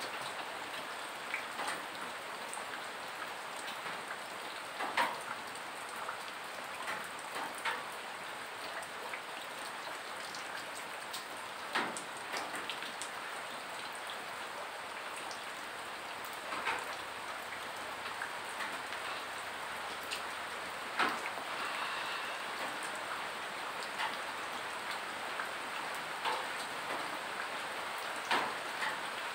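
Steady rain falling, with single heavy rainwater drips landing loudly at irregular moments every few seconds.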